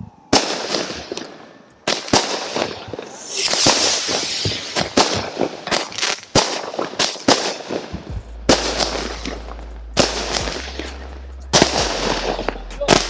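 Phantom "Red, White and Boom" firework cake firing: a quick succession of shots and loud bangs, with a stretch of dense crackling about three to four seconds in.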